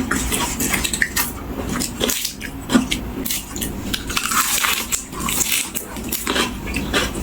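Close-up eating sounds: a person chewing and crunching food, with irregular crisp crackles and mouth clicks and one louder crunch a little under three seconds in.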